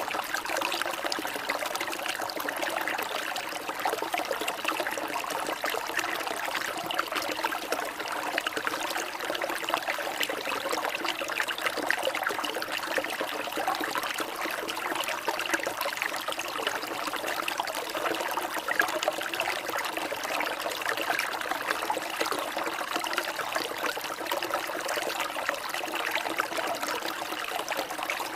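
Water trickling steadily, a continuous bubbling flow with many fine crackles and no pauses.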